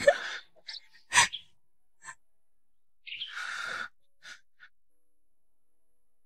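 A person's short breathy sighs and gasps: a sharp intake of breath about a second in, and a longer sigh about three seconds in.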